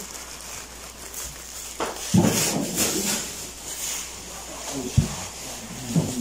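Thin plastic grocery bags rustling and crinkling as they are handled, with a louder bump about two seconds in and a couple of short knocks near the end.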